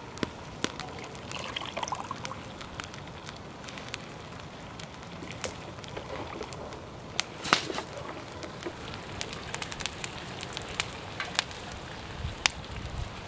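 Wood fire crackling, scattered sharp pops over a steady hiss, the loudest pop about seven seconds in. Near the start a yogurt-and-water mixture pours into a metal pot, and a wooden spatula then stirs it.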